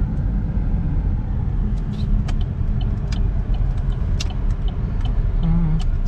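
Inside the cabin of a GMC Terrain SUV rolling slowly: a steady low engine and road rumble, with scattered faint ticks and clicks.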